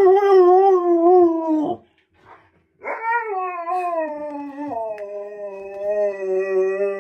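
Huskies howling: one long wavering howl, a short break, then a longer howl that slowly falls in pitch, joined about halfway through by a second, lower steady howl.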